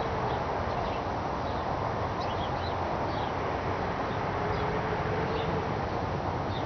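Steady outdoor background rumble with a faint hum in the middle, and small bird chirps scattered through. No banging is heard.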